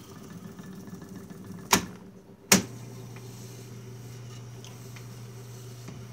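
Sony TC-350 reel-to-reel tape deck being switched over: two sharp clunks of its transport controls, about a second and a half and two and a half seconds in, between stretches of quiet mechanical running. After the second clunk a steady low hum holds.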